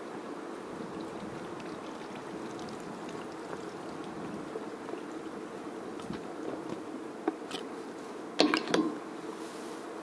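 Steady rush of flowing stream water, with a few short sharp rustles and knocks near the end, the loudest cluster about eight and a half seconds in, like leaves and twigs brushing past.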